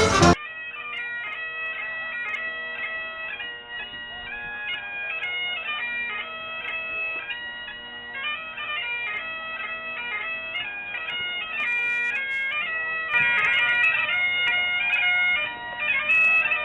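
Bagpipes playing a tune over steady drones, the melody notes stepping quickly from one to the next above the unchanging drone. It gets louder about thirteen seconds in.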